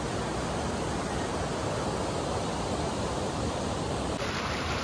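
Steady, even rushing noise of fast-flowing river water below the Kalu waterfall, unbroken throughout.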